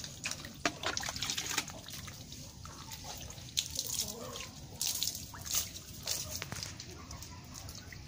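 Water being scooped with a plastic dipper and poured over a horse's head and mane, splashing and dripping in irregular spurts.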